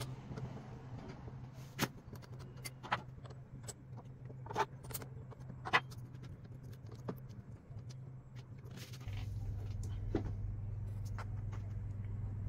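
Light metallic clicks and taps as the cutting bit and steel shims are fitted and clamped in a mini lathe's four-way tool post, over a low steady hum that gets louder about nine seconds in.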